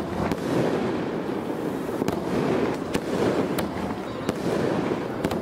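Fireworks bursting: a continuous rushing, crackling noise broken by sharp cracks at irregular intervals.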